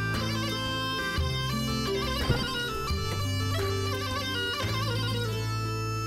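Background score music: a reedy, bagpipe-like wind melody with quick ornaments over a steady low drone.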